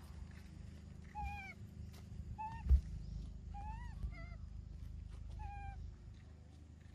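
Baby macaque crying in about five short, high-pitched calls, each rising then falling in pitch: a distress cry for its mother. One loud thump partway through.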